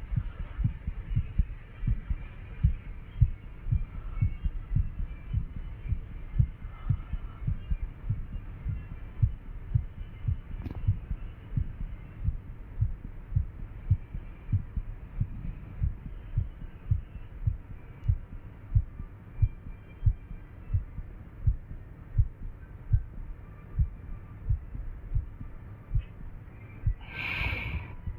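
Human heartbeat pounding fast and irregularly: a steady train of dull low thumps, about one and a half a second and unevenly spaced. Near the end a brief, louder rustling scrape sounds over it.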